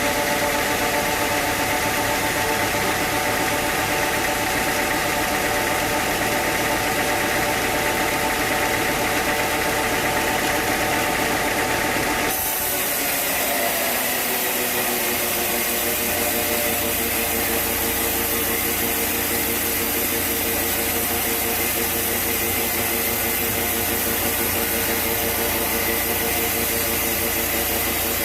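Sawmill machinery running steadily, a motor hum with several constant tones. About twelve seconds in, the sound changes abruptly to a lower-pitched set of tones.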